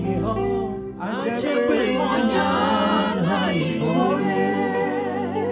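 A group of voices singing a gospel worship song in harmony over sustained low accompanying notes; the singing swells fuller about a second in.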